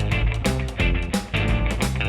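Background music: guitar-led rock track with a steady drum beat.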